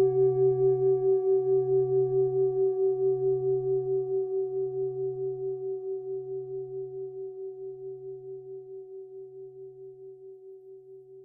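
A singing bowl rings out after being struck, its tone wavering about five times a second and slowly dying away, the usual close of a meditation session after the recitation.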